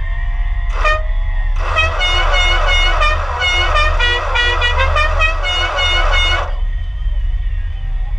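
Car horn: a short toot about a second in, then rapid repeated honks for about five seconds that stop suddenly, over a steady low rumble.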